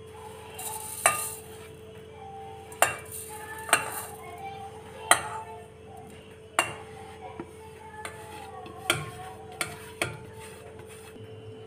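Steel plate clinking and scraping against the rim of a steel mixer-grinder jar as spices are tipped and tapped off it: about eight sharp metallic knocks at irregular intervals, over a steady faint hum.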